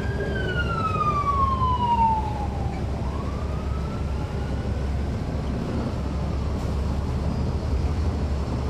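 Emergency-vehicle siren wailing: one tone that falls slowly over about two seconds, then rises again and fades away. Under it runs the steady low sound of the bus's Caterpillar C13 diesel engine.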